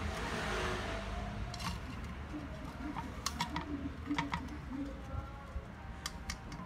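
Chopsticks tapping and scraping against a metal wok and the rim of a ceramic bowl while pieces of fried fish are lifted out, a handful of short sharp clicks, several in quick pairs.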